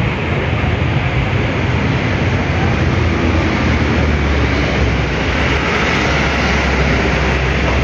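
Steady, loud mechanical drone of a running machine, with a constant low hum under an even hiss.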